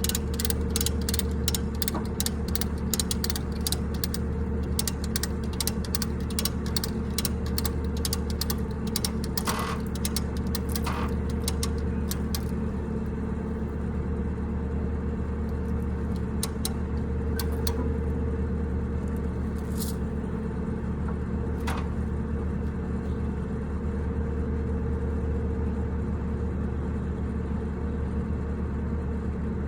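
An engine idling steadily throughout, with the rapid, even clicking of a ratchet wrench being worked for roughly the first twelve seconds, then only a few scattered clicks.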